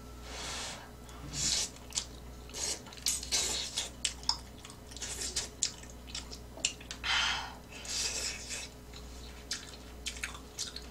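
Ramen noodles being slurped and chewed, with several short slurps and a scatter of clicks from chopsticks and a metal spoon against a stainless steel pan.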